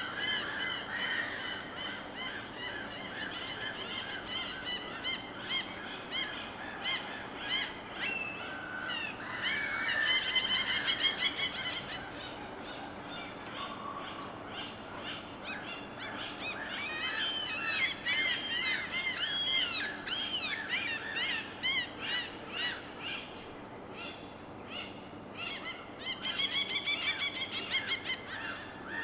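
Birds calling over and over in harsh, honking calls, several at once in places, over a steady wash of water.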